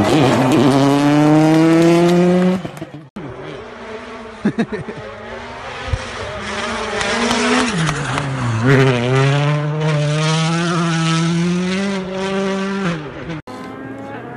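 Rally car engines at full throttle in quick cuts. First a rally car revs up as it accelerates past. Then a Hyundai i20 WRC pulls hard, with a few sharp cracks early in the run; its engine note dips briefly about eight seconds in, then climbs and holds high.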